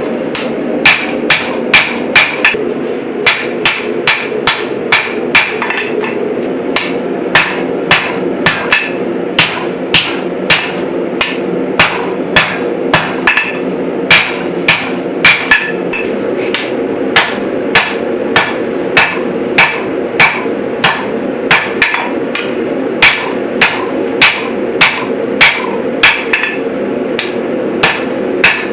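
Hand hammer striking red-hot saw-blade steel on an anvil, about two blows a second with a few short pauses, over a steady hum. The blade is being drawn out at forging heat.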